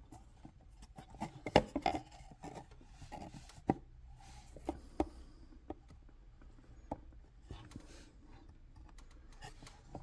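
Diorama kit parts being handled and fitted together: scattered clicks and light knocks, the loudest cluster about one and a half seconds in, with faint rubbing and scraping between.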